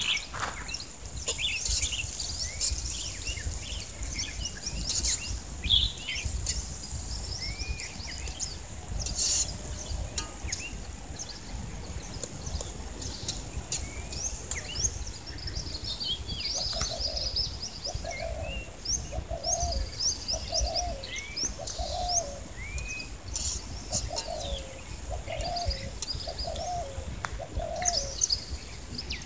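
Wild birds chirping with many short, quick calls. From about halfway through, a lower call repeats roughly once a second for some ten seconds.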